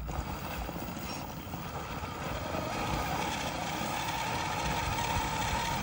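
A 1/10-scale RC rock crawler's brushless motor and geared transmission whining steadily under load as it crawls over rocks. The whine grows stronger and rises slightly in pitch in the second half.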